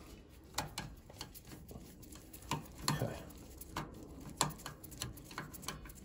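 Screwdriver tightening a screw that fastens a new zone valve head to its valve body: scattered light clicks and taps of the tool on the screw and metal bracket.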